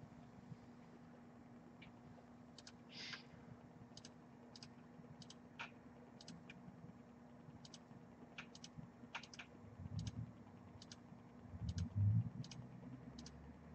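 Faint, irregular clicking of a computer keyboard, about one or two clicks a second, as names are typed in. A couple of low thumps come about ten and twelve seconds in.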